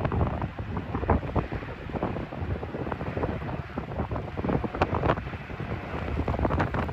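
Strong wind buffeting the microphone in uneven gusts, with rumbling and irregular thumps.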